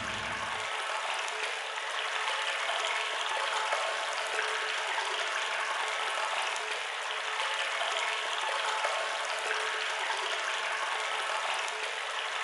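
Steady rushing of water flowing into a pump-station wet well as the level rises. A low rumble underneath cuts out less than a second in.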